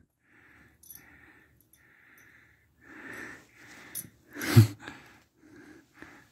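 A small dog breathing hard and snuffling close to the microphone in a string of short noisy puffs while chasing an ice cube, with one louder burst about four and a half seconds in.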